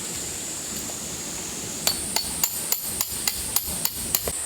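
A hammer striking metal, about ten quick, ringing blows in two and a half seconds, starting about two seconds in, typical of driving a tent peg into the ground.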